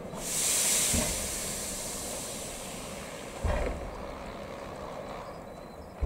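1861 Robert Stephenson & Co. steam locomotive letting off steam as it creeps forward: a loud hiss of steam right at the start that fades away over about three seconds, with a few short low thuds spaced two to three seconds apart.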